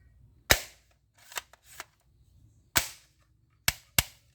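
Toy gun being fired: four sharp snapping shots, the last two close together, with a few fainter mechanical clicks between them.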